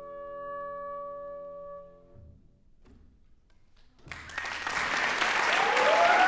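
Instrumental ensemble holding a final sustained chord, which dies away about two seconds in. After a brief hush, audience applause breaks out about four seconds in, with a few cheering voices near the end.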